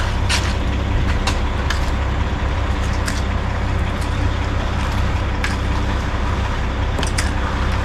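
A heavy diesel engine running steadily close by, with scattered sharp clicks and knocks over it.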